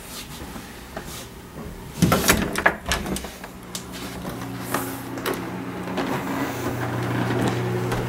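Knocks, clicks and rustling, loudest in a cluster about two to three seconds in, then a steady low hum that slowly grows louder towards the end.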